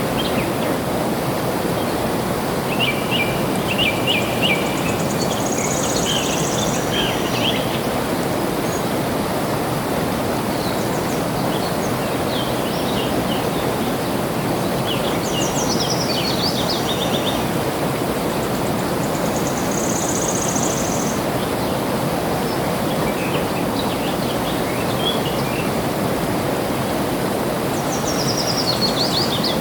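Steady rush of flowing water, with songbirds chirping and trilling above it in short bursts every few seconds.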